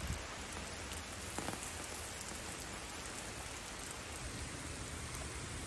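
Steady rain falling, with a few sharper drop ticks.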